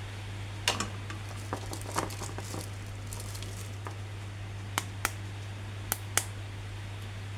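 Light plastic clicks and taps from a plastic action figure and its packaging being handled, about nine scattered ticks over a steady low hum.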